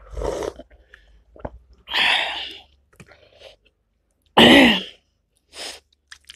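Slurping sips of local chicken soup drunk from a bowl, with breaths between. About four and a half seconds in comes a loud, short throat-clearing cough.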